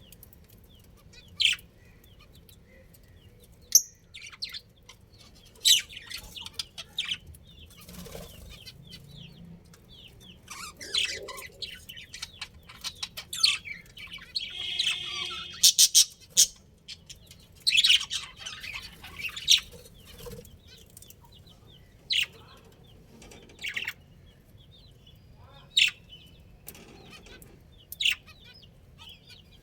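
Budgerigars chirping in short, sharp calls scattered every second or two, with a longer warbling call about halfway through.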